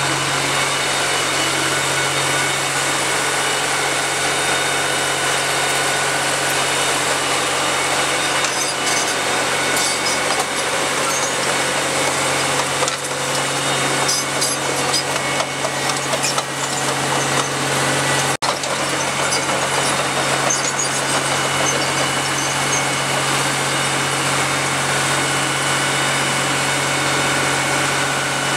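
Fire-ground noise: a steady engine hum from fire vehicles runs under a constant hissing rush of water spray and burning debris, with occasional faint crackles.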